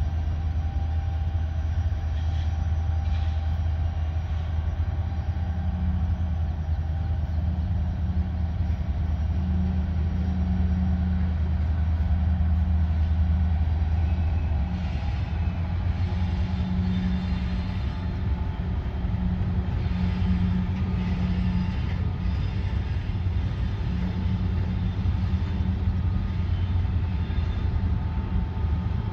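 Norfolk Southern diesel-electric locomotive running with a deep steady rumble at the head of a coal train. The rumble lessens about halfway through.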